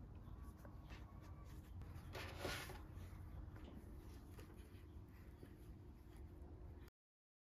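Quiet room tone with faint handling sounds: a few light taps and a brief rustle about two and a half seconds in. The sound cuts to dead silence for the last half second.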